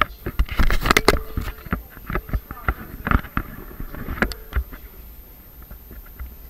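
Handling noise from a handheld camera being swung about: irregular knocks, bumps and rubbing on the microphone, with brief voices mixed in.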